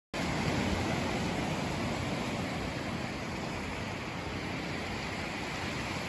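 Steady rush of surf washing up a sandy beach, with wind rumbling on the microphone.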